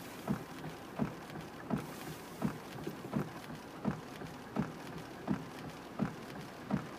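A car's windshield wipers sweeping in rain, a short thump about every 0.7 s as the blades turn, over the steady hiss of rain and wet traffic.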